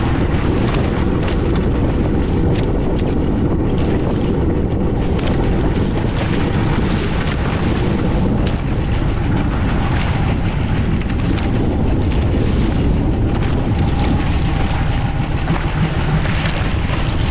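A fishing boat under way at sea: a steady low rumble mixed with heavy wind buffeting the microphone, with scattered sharp knocks or splashes throughout.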